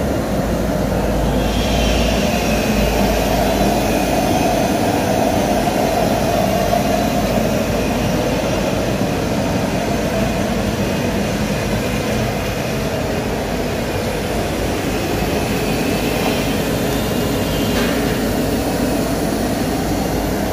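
CNC router's 9 kW air-cooled spindle cutting an MDF panel, a loud steady machine noise. A high whine comes in about a second and a half in, fades, and returns briefly near the end.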